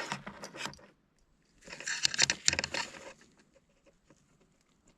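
Handling noise of a new fuel injector and the tools used to test it: quick clicks and rustling in two bursts, a short one at the start and a louder one from about two to three seconds in.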